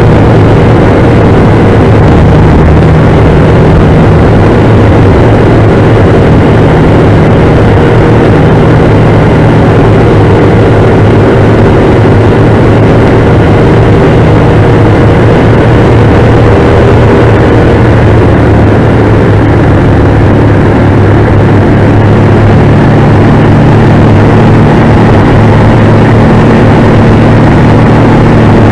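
Engine and propeller of a Gerle-2 biplane running loud and steady in flight, heard from the open cockpit amid wind rush. The engine note shifts a little about two-thirds of the way through.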